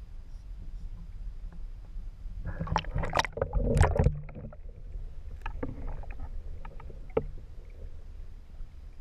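Water sloshing and splashing around a camera as it is dunked below the river surface, loudest in a burst about two and a half to four seconds in. After that the sound turns muffled and underwater, a low rumble with scattered faint clicks.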